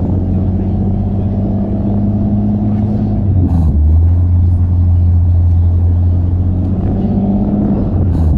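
Car engine running at low road speed with a deep, steady rumble; its pitch creeps up, then breaks off with a sharp click about three and a half seconds in and again near the end, before settling back.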